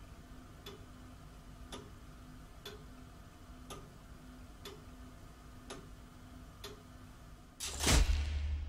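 A clock ticking slowly and evenly, about once a second, over a faint steady hum. Near the end a much louder whoosh with a low rumble cuts in.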